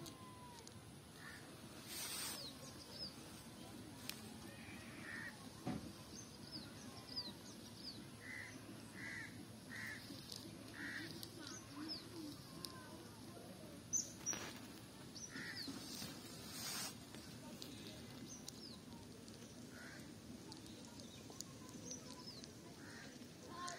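Songbirds chirping steadily with short falling notes, with a run of four similar calls about a second apart in the middle. A few brief rustling noises, the loudest about two-thirds of the way through.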